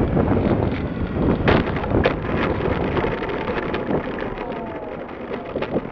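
Wind rushing over a radio-controlled model plane's tail-mounted camera, dying away, with scattered clicks and rattles. A faint whine falls in pitch in the middle.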